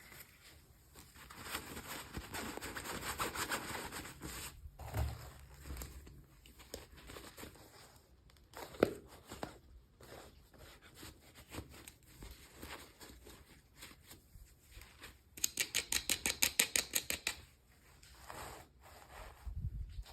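Toy packaging being handled and opened by hand: irregular rustling and scraping, with a rapid run of clicks for about two seconds near the end.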